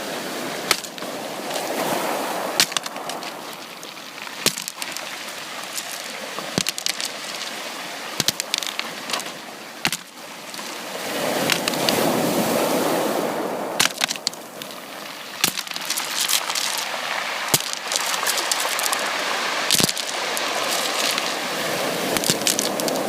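Sea water washing and sloshing, swelling into a wave about every ten seconds and easing between, with frequent sharp clicks scattered through it.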